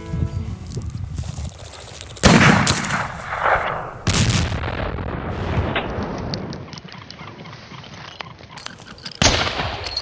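Three shotgun shots, each a sharp crack with a decaying report. The first, about two seconds in, is the loudest, the second comes about two seconds later, and the third is near the end.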